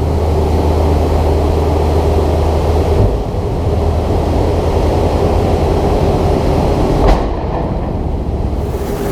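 Heavy farm machinery's diesel engine running steadily under load, with a low drone that changes about three seconds in and a single knock about seven seconds in.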